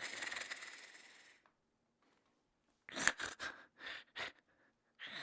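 Cartoon character snoring in its sleep: a long hissing breath lasting about a second and a half, then, after a pause, a quick run of five or six short breathy puffs, and another breath starting near the end.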